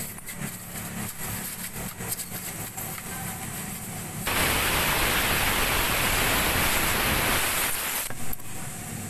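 A steady hiss of escaping air starts suddenly about four seconds in and cuts off about four seconds later. Under it is a low workshop hum and faint clicks from a tire plug insertion tool being worked into the puncture of an inflated tubeless tire.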